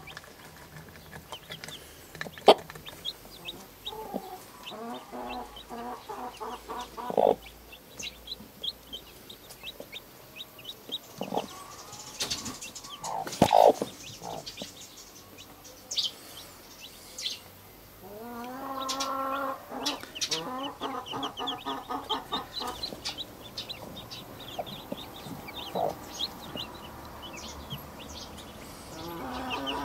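Broody mother hen with newborn chicks giving harsh clucks and a long drawn call, defending the nest, while the chicks peep in short high chirps. A few sharp knocks break in, the loudest about halfway through.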